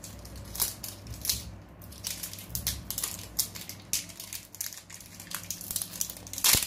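Crinkly wrapping being peeled and torn off an LOL Surprise Pets toy ball: a dense run of sharp crackles, the loudest just before the end.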